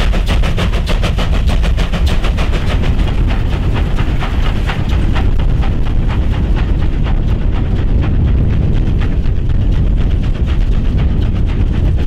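South African Class 19D 4-8-2 steam locomotive working hard, its exhaust chuffing in rapid, even beats, several a second, over a low rumble. The chuffs grow duller in the second half as the engine draws away.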